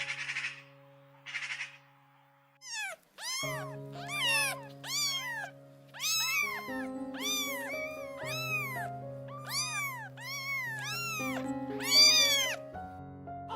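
Cat meowing over and over, a quick run of short rising-and-falling meows that starts about three seconds in, over background music with held notes.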